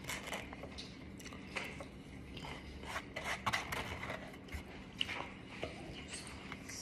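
Irregular small rustles, scrapes and clicks of barbecue takeout food and its containers being handled while people eat.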